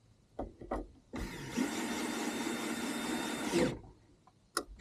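A handheld electric power tool's motor runs steadily for about two and a half seconds, after a few short knocks.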